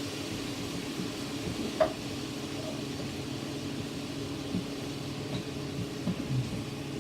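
Steady motor hum over a faint sizzle of chicken and peppers frying in a pan, with a sharp clack of a utensil on the pan about two seconds in and a few soft knocks of stirring later.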